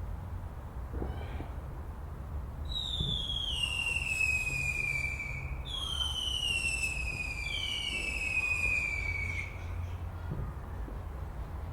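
Fireworks display with whistling fireworks: three long whistles, each falling in pitch over two to three seconds, the second and third overlapping, over a low rumble with a few faint pops.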